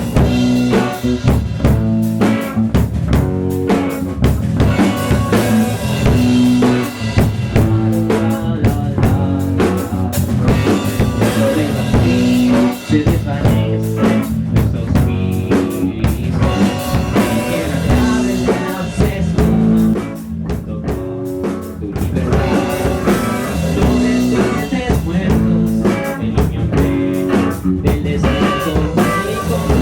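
A rock band playing live in a studio, heard as room sound: a drum kit with bass drum, snare and rimshots is loudest, over sustained bass and guitar notes.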